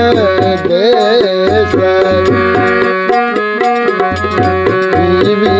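Indian devotional folk song: a male singer holds and ends a sung line with gliding pitch, then the accompaniment carries on with a melody instrument holding steady notes over regular hand-drum strokes.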